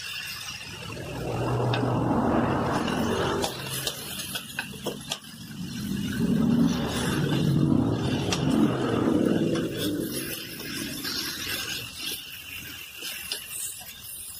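Food frying in a wok, with a sizzling rush that swells twice. Metal tongs and a wooden spatula click and scrape against the wok as whole fried fish are turned in the tomato sauce.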